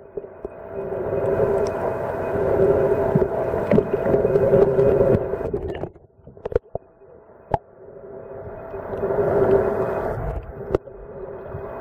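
Muffled underwater noise with a steady droning hum. Around six seconds in, the hum drops away almost to quiet, with a few sharp clicks, then builds back up.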